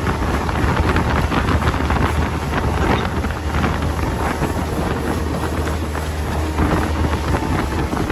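Small aluminium tinny under way on choppy water, its outboard motor running as a steady low hum under heavy wind noise on the microphone and the hiss and slap of water against the hull.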